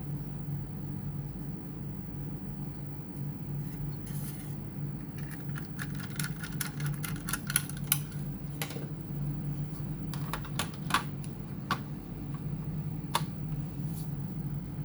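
Scattered light clicks and scrapes of small laptop parts and tools being handled, over a steady low hum. The clicks are sharpest about halfway through and near the end.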